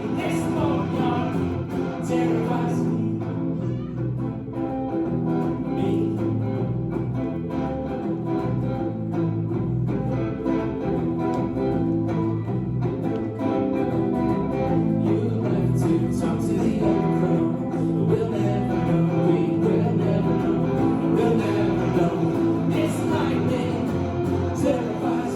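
A live band playing, led by guitar, in a passage without sung words, picked up on a cell phone's microphone.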